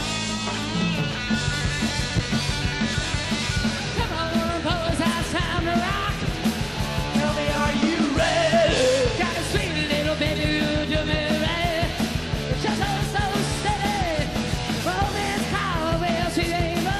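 Hard rock band playing: distorted electric guitars and drums with a beat, and a voice singing over them.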